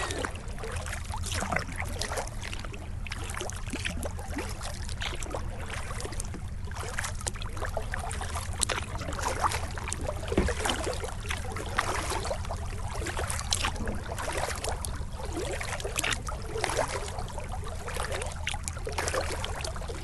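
Kayak paddling: the paddle blades dip and pull, and water drips and splashes off them in an irregular run of small splashes, over a steady low rumble.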